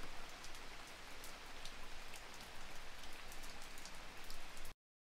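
Steady rain falling, with many single drops ticking on a hard surface. It cuts off suddenly near the end.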